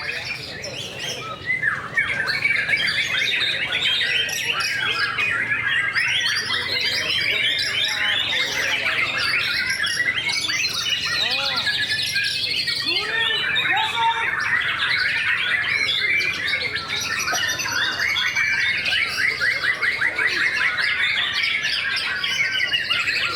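Several caged white-rumped shamas (murai batu) singing at once: a dense, overlapping mix of loud whistles, rapid trills and harsh chattering calls.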